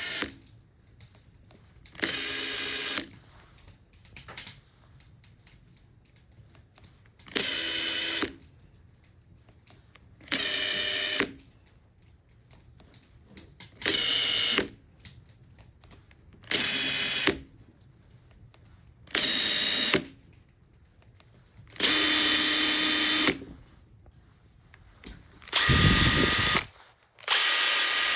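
Makita TP131D cordless 4-mode impact driver test-run after repair: its motor is triggered in about nine short bursts of roughly a second each, with pauses of one to three seconds between them. The last few bursts are louder and longer, and one near the end sounds deeper.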